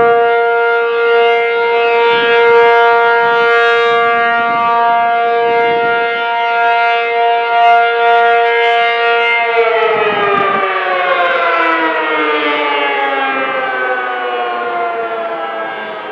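ACA P-50 outdoor warning siren holding a steady alert tone, then about nine and a half seconds in it winds down, its pitch falling steadily.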